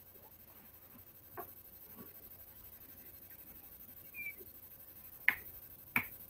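Quiet room with a few faint scattered clicks and taps, then two sharper clicks near the end.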